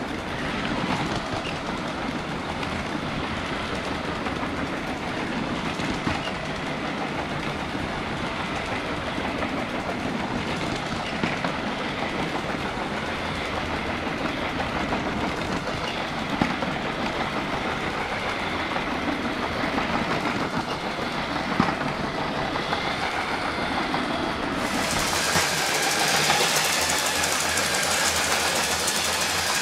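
Lego 12-volt electric toy train running on plastic track: a steady motor hum with the wheels rattling along the rails and a few sharp clicks. About 25 s in, the sound abruptly turns brighter and hissier.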